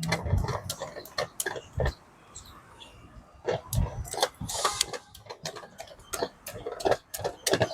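Irregular clicking and knocking, with faint voices in the background.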